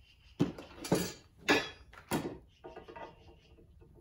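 Steel suspension parts and hardware handled on a workbench: four sharp clanks and clatters in the first two seconds, then softer rattling and rustling.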